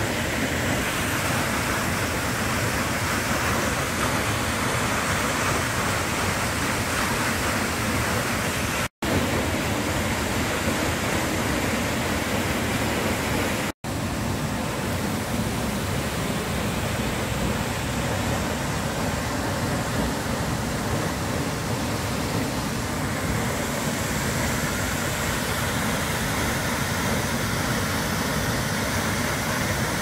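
The Falls of Moness waterfall rushing as a steady, even roar of falling water. The sound cuts out for a split second twice, about nine and fourteen seconds in.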